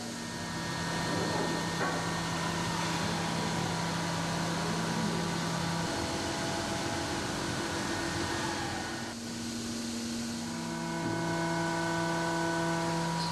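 CNC stone-machining centre running, a steady hiss of machining and water spray with several held tones that change pitch a few times.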